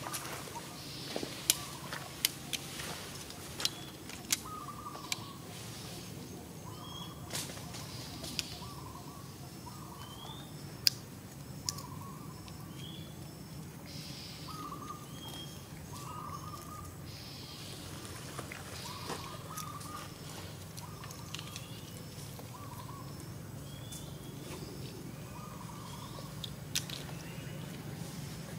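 Birds chirping: short calls repeating every second or two. A few sharp clicks fall in the first few seconds and one louder click about eleven seconds in, over a steady low hum.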